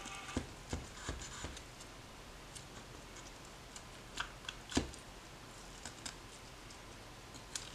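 Knife carving into a smoked whole duck at the leg on a cutting board: scattered faint clicks and taps, several in the first second and a half and the sharpest about five seconds in.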